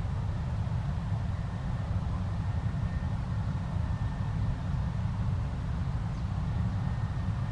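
Claas Lexion 670 combine harvester running steadily: a deep, even rumble with a faint thin whine on top.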